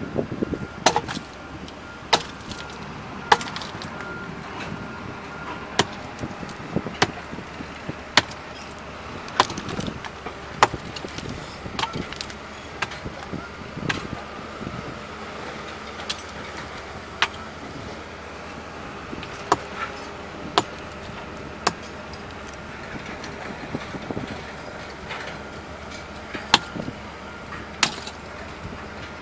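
A sledgehammer striking rock by hand, breaking it up: sharp blows at an uneven pace, about one a second, over a steady background hum.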